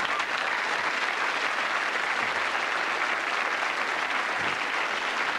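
Studio audience applauding steadily after a comedy punchline.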